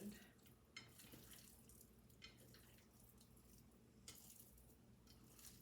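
Near silence: faint kitchen room tone with a few soft clicks.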